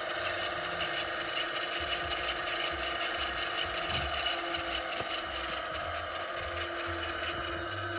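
Emerson 230-volt dual-shaft AC motor running with a steady whir, its bearings a little loud. A steady hum joins in about four seconds in.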